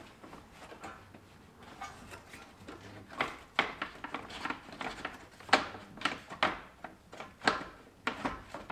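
Plastic radiator fan shroud knocking and clicking as it is worked down into its lower mounts: a run of sharp, irregular knocks, most of them in the second half.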